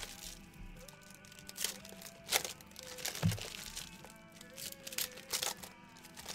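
Soft background music with a melody, under a few separate crinkles and clicks of trading card packs and cards being handled on a table.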